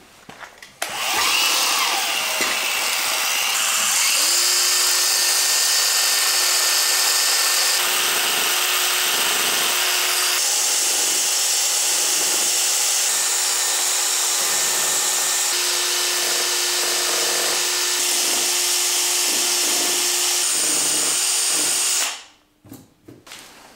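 Cordless drill running steadily, drilling bolt holes through a widebody fender-flare panel on a car body. It has a steady motor whine, starts about a second in and cuts off abruptly near the end.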